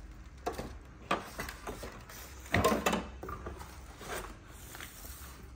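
Unpacking noises: plastic wrapping rustling and parts knocking against a cardboard box as juicer components are lifted out, with the loudest knock a little past the middle.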